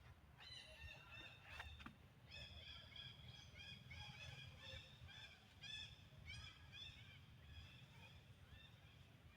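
Baby monkey giving a rapid string of short, high-pitched squeaky calls, each rising and falling, about two to three a second, starting about two seconds in, with a couple of sharp knocks just before.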